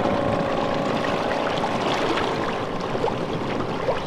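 Water rushing and splashing against the hull of an inflatable dinghy underway, with wind on the microphone.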